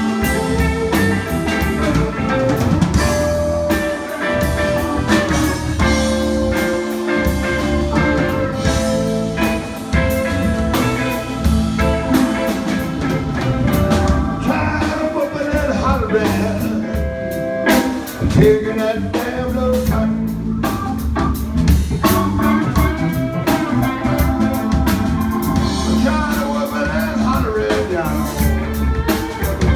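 Live blues band playing: electric guitar over bass guitar and drum kit, with a steady beat throughout.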